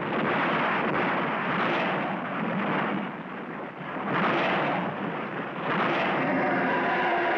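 Cartoon sound effects of a collapsing, exploding base: a continuous rumble of falling rock and blasts, swelling loudest about four seconds in and again about six seconds in, with a pitched sound joining near the end.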